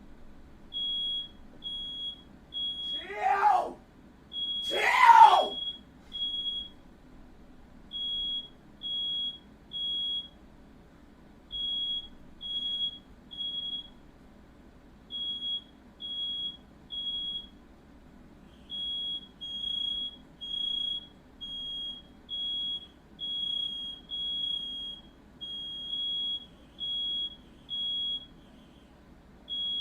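Smoke alarm sounding its shrill high beep in repeated groups of three, the standard fire-evacuation pattern, triggered by smoke from a fire. A person's voice cries out twice a few seconds in, the second cry the loudest sound.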